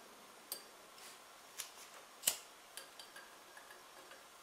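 Several sharp, irregular clicks and ticks while a lighter flame is held to a Campingaz gas lamp's mantle and its gas valve is eased open to light it; one click about two seconds in is the loudest.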